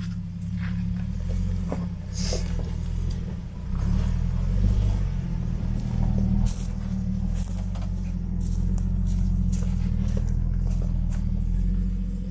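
Off-road 4x4's engine running at low speed under load as it crawls up a rough rocky track, its note swelling about four seconds in. Occasional short knocks from the vehicle working over the rocks.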